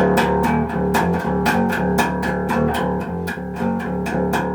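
Intro music: a band track with guitar and bass over a steady beat.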